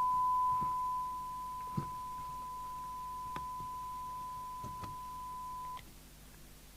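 Maxcom Apollo 16E FM CB radio's speaker putting out a steady single-pitch test tone as it receives the test gear's modulated signal, showing the no-receive fault is cured. The tone drops in level about a second in and cuts off abruptly near the end, with a few light clicks along the way.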